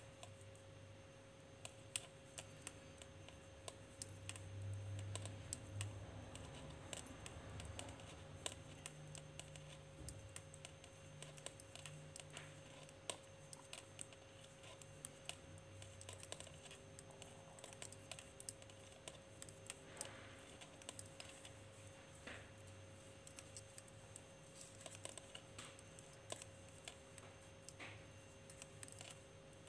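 Knitting needles clicking and tapping together in small irregular clicks as purl stitches are worked across a row, with a faint steady hum underneath.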